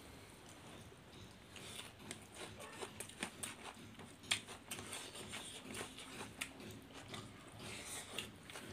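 Two people eating rice and fish curry with their fingers: soft chewing and lip smacks, with many small wet clicks, the sharpest a little past the middle.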